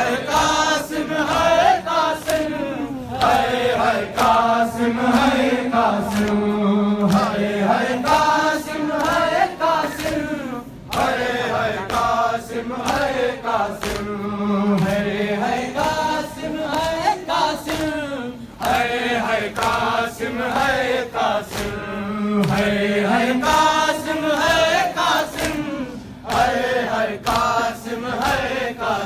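A group of men chanting an Urdu noha, a Shia mourning lament, together, the melody rising and falling in repeated phrases, with sharp slaps from chest-beating (matam) now and then.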